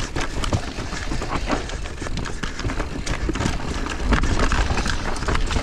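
Mountain bike rattling down a rocky technical trail: tyres and frame knocking over rocks in quick, uneven clatters, with wind rumbling on the microphone, heavier about four seconds in.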